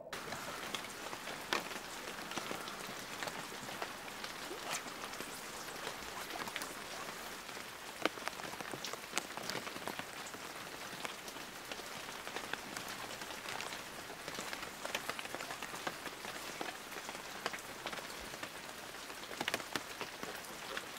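Rain falling on a river's surface: a steady hiss with many sharp little ticks of drops striking the water.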